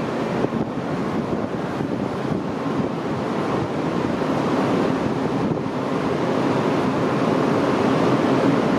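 Breda A650 subway train standing at an underground platform with its doors open, its on-board ventilation and equipment making a steady rushing hum that gets a little louder in the second half.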